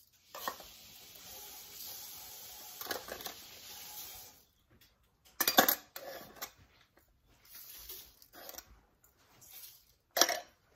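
Spices being added to a whole raw chicken in a stainless-steel pot: a steady dry rustle for about four seconds, then sharp metallic clinks of a utensil on the stainless-steel spice bowls, once about halfway through and again near the end.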